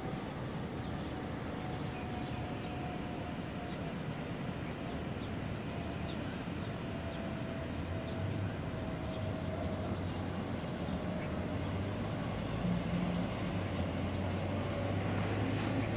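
Steady hum of distant road traffic, with a faint steady tone drifting in and out, growing a little louder toward the end.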